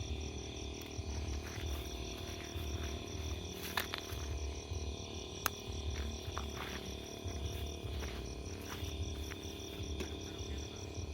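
Night insects such as crickets calling: a high, evenly pulsing chirp over a steady shrill drone, with a low rumble beneath and a few faint clicks.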